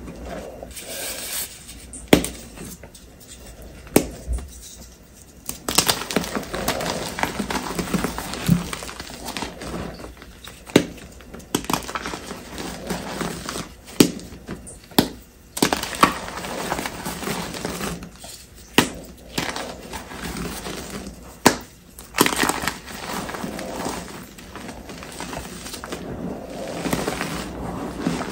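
Reformed gym chalk being crumbled and crushed by hand: dry, powdery crunching with many sharp snaps as the chalk lumps and blocks break apart.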